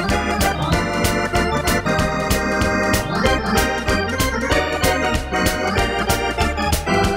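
Two-manual electronic home organ played with both hands: chords and melody over a bass line, with a steady beat.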